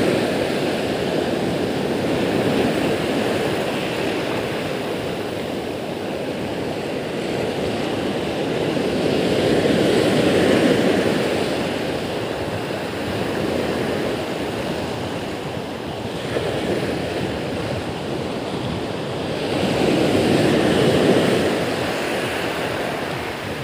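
Sea surf breaking and washing up a gravel beach: a steady rushing wash that swells with a louder surge about ten seconds in and again near the end.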